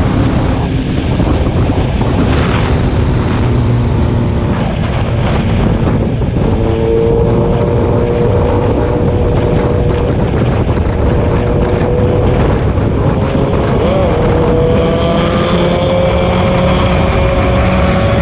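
A road vehicle under way: a loud, steady rumble with wind noise on the microphone, and an engine note that rises slowly over the second half.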